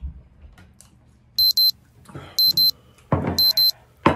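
Timer alarm beeping: three double high-pitched beeps about a second apart, signalling that the countdown has run out.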